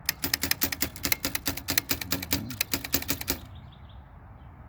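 Elliott Fisher book typewriter's mechanism clicking rapidly and evenly, about nine clicks a second, stopping about three and a half seconds in.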